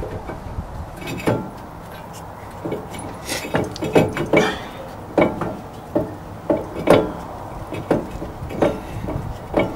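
Irregular metallic clicks and knocks from a socket wrench and bolt as the brake assembly's top bolt is threaded in and started.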